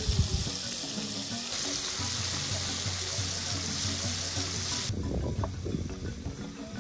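Whole fish frying in hot oil in an aluminium pot, a loud sizzle with flour sprinkled over it; the sizzle drops away sharply about five seconds in. Background music with steady low notes plays underneath.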